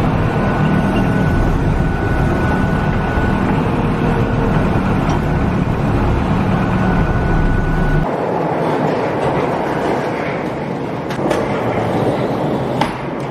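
Loader tractor's diesel engine running steadily, heard from inside the cab, with a faint steady whine. About eight seconds in it cuts off abruptly to a steady rushing noise with a few sharp clicks near the end.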